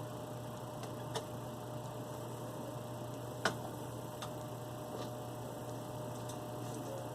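Steady low electrical hum with a few light clicks. The sharpest click comes about three and a half seconds in, and a smaller one just after a second in.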